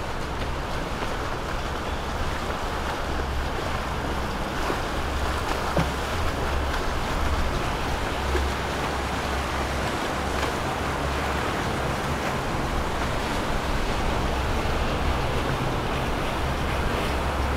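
Motorboat passing: engine running under a steady rush of water from its hull and wake, with wind buffeting the microphone.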